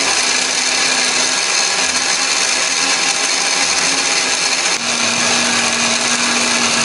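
Countertop blender with a glass jar running at full speed, grinding red chillies, shallots and garlic with a little liquid into a spice paste. The motor's pitch wavers as it works through the chunks, then holds steady from about five seconds in, when the paste has gone smooth.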